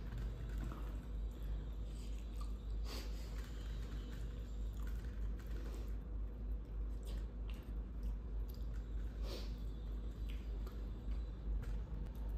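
A person chewing food, with a few short, sharp mouth and eating clicks spaced seconds apart, over a steady low hum.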